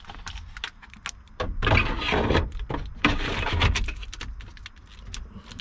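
Clicks, knocks and scraping of plastic and metal as a Pioneer car stereo head unit is handled and slid into the dash opening, with two longer scraping stretches about one and a half and three seconds in.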